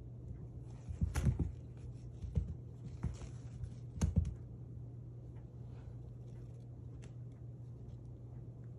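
Soft thumps and scuffing taps of a kitten pouncing and batting at a wire cat wand on a carpet runner: a cluster about a second in, single knocks a little later, and another cluster around four seconds, then only faint taps. A steady low hum lies underneath.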